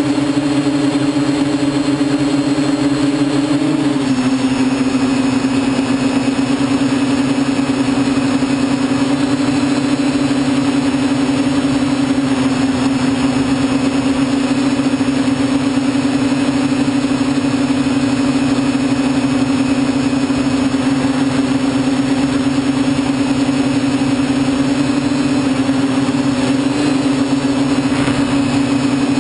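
TBS Discovery quadcopter's electric motors and propellers buzzing steadily in flight, heard from its onboard camera. The pitch drops slightly about four seconds in.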